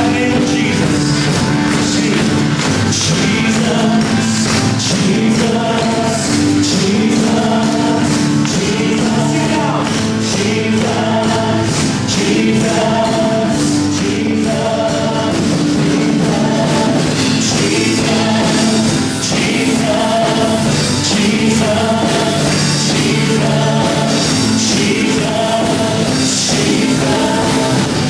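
Worship music: singers with a band, a steady beat and sustained sung notes repeating in a regular phrase.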